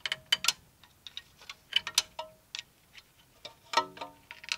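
Screwdriver clinking and tapping against the front disc-brake caliper of a 1984 Dodge D50 as a retaining pin or clip is worked into place: irregular sharp metallic clicks, some with a brief ring.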